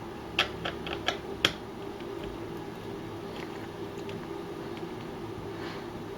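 About six light, sharp clicks in the first second and a half: small screws and a screwdriver being handled and set down on a hard surface. After that only a steady low hum with a few faint ticks.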